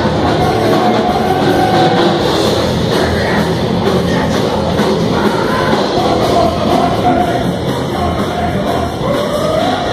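Live heavy metal band playing loudly, with electric guitar, bass and drums and a voice singing over them.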